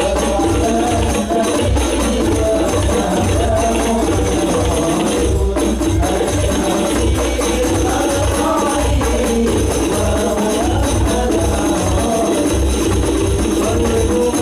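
Hadrah ensemble performing sholawat: rebana frame drums and jingling percussion playing under a sung devotional melody.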